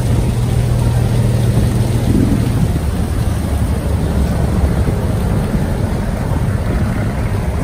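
Boat engine running steadily with a low drone.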